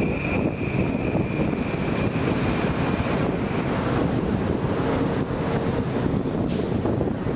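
Metro-North electric commuter train rolling slowly past close by: a steady rumble from the cars on the track, with a thin high tone that fades out about three seconds in. Wind buffets the microphone.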